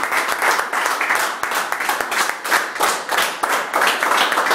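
A group of people clapping hands fast and out of step with one another, with shouting voices mixed in.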